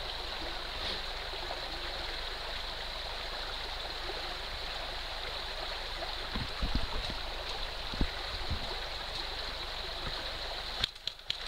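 Steady rushing and gurgling of a shallow woodland stream, with a few dull low knocks around the middle. Near the end the water sound drops suddenly and sharp clicks begin.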